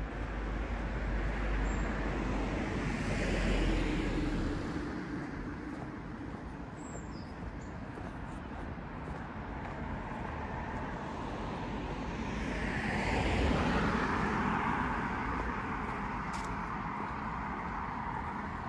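Street traffic: vehicles passing, the sound swelling and fading once about three and a half seconds in and again about thirteen seconds in, over steady road noise.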